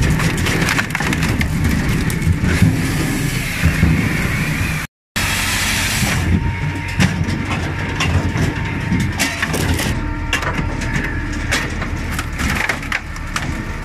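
Binderberger SSP 450 saw-splitter firewood processor running: a steady machine drone with repeated sharp cracks and clatter of wood being split and pieces tumbling onto the conveyor.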